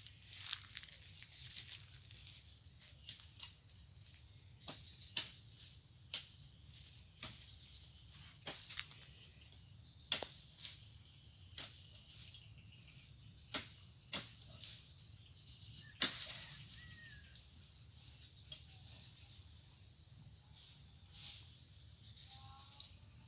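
Insects droning steadily outdoors at two constant high pitches. Irregular sharp clicks and snaps cut across the drone about every second or two, the loudest about ten and sixteen seconds in.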